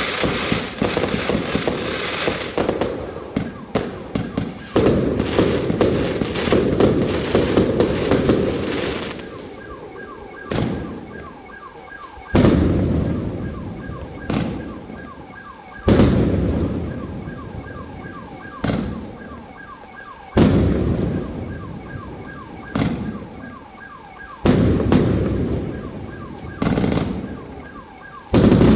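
Multi-shot fireworks cake firing: a dense, rapid volley of shots and crackle for the first nine seconds or so, then single loud bangs about every two seconds. A faint repeating high tone sounds under the later bangs.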